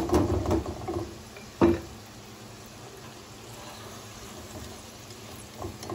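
Potato cubes sizzling as they deep-fry in hot ghee in a kadhai, a steady hiss, with one sharp knock of a utensil about one and a half seconds in and a smaller one near the end.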